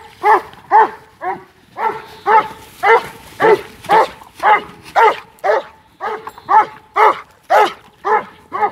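A sheepdog barking over and over in short, sharp barks at about two a second, without a break, as it works a yard of sheep.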